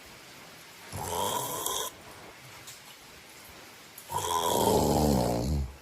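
A person snoring: a short snore about a second in, then a longer, louder snore near the end that drops in pitch.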